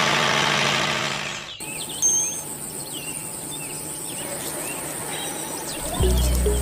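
A loud, steady mechanical noise cuts off abruptly about a second and a half in, leaving quieter outdoor ambience with birds chirping. Music with a low bass line comes in near the end.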